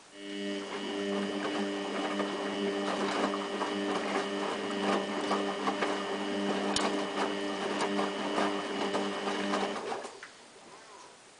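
Samsung WF8804RPA front-loading washing machine's motor turning the drum during the final rinse: a steady hum with a higher whine, irregular clicks and crackles over it. It starts at once, runs about ten seconds, then winds down in pitch and stops.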